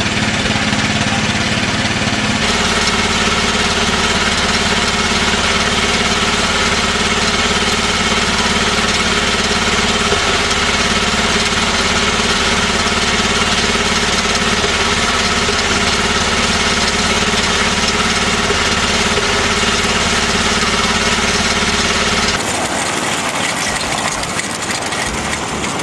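Small petrol engine of a miniature railway locomotive running steadily. Its note shifts about two seconds in, and near the end it gives way to a lighter, noisier running sound.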